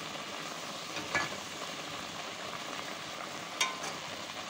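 Vermicelli in milk and sugar sizzling and bubbling hard over high heat in a metal pot as the liquid cooks off and the mix turns dry. A metal spoon knocks against the pot twice, about a second in and near the end.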